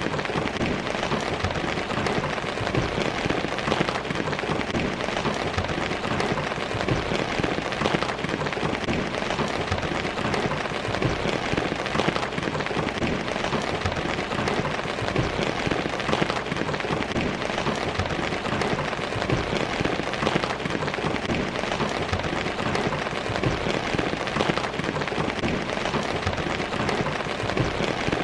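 Steady heavy rain falling and splashing on hard surfaces, a dense, even patter of drops.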